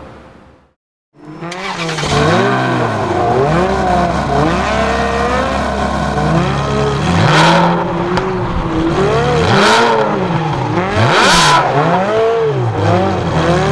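Ferrari 360 Challenge Stradale's V8 revving up and down again and again, its pitch rising and falling, beginning about a second in after a brief silence. Tyres squeal in a slide three times in the second half.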